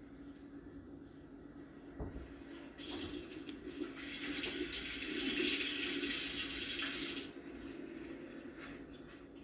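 Kitchen tap water running into the sink during hand dishwashing, coming on about three seconds in and shut off abruptly about four seconds later. A single knock from handling dishes comes just before the water starts.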